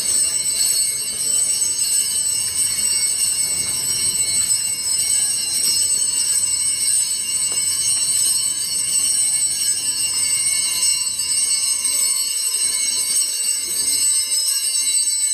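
Small hand bells rung without pause, a steady bright metallic ringing with many high overtones that holds at an even level throughout.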